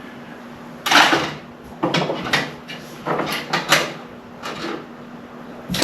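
WD-40 aerosol can spraying penetrant in a series of short hissing bursts, soaking a stuck bolt before it is loosened.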